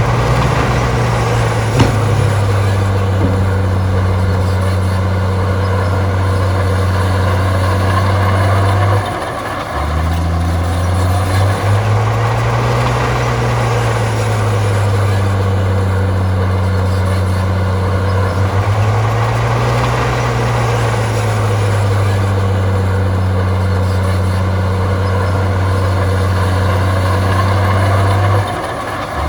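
Heavy diesel engine of earthmoving machinery working under load, a deep steady drone whose pitch swells up and settles back twice. There is a short drop in level about nine seconds in and again near the end.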